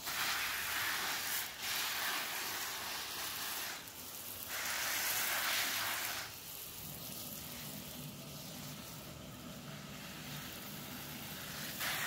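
Garden hose with a spray nozzle showering water onto soil and lettuce, a steady hiss of spray hitting the ground that turns quieter about halfway through.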